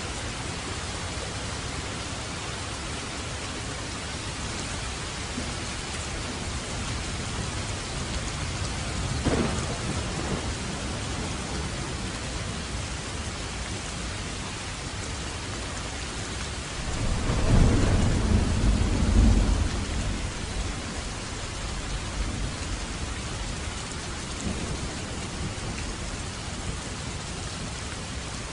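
Steady rain, with a short crack of thunder about a third of the way in and a longer, louder rumble of thunder a little past halfway.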